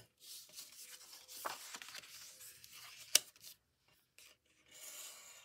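Bone folder rubbed along the scored folds of patterned paper, a soft, irregular scraping and rustle of paper, with one sharp click about three seconds in.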